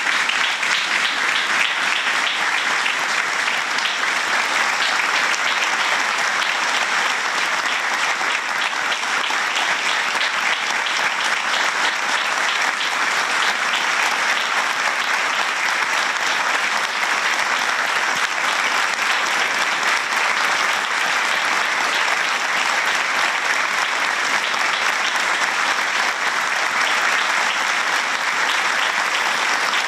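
Sustained applause, many hands clapping in a dense, even patter that holds steady without a break.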